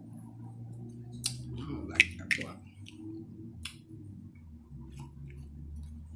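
A few sharp clicks and cracks, about four in the first four seconds, from seafood-boil shells such as snow crab legs being cracked or snipped while eating, over a low steady hum.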